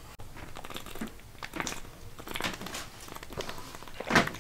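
A protein shake being made in a plastic shaker bottle: scattered rustles and light clicks as powder is scooped in and the bottle is handled. A single louder gulp comes near the end as the shake is drunk.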